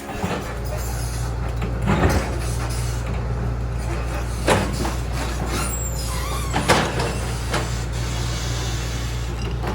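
Backhoe's diesel engine running steadily under load, with a few sharp clanks of the bucket and rocks and brief metallic squeaks near the middle.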